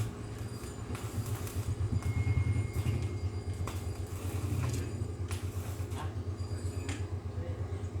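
A steady low machine hum with a fast pulsing beat, from a running motor or engine, with a few sharp metallic clicks over it.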